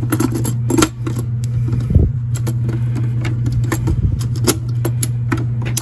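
Plastic circuit breaker clicking and knocking against the metal breaker panel as it is handled and lined up to be plugged in, a few sharp clicks scattered through, over a steady low hum.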